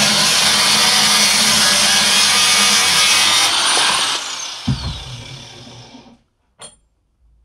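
Angle grinder with a thin cutting disc cutting into a small steel plate. It is switched off about four seconds in, and its whine falls as the disc spins down. A dull thump comes near the end of the spin-down.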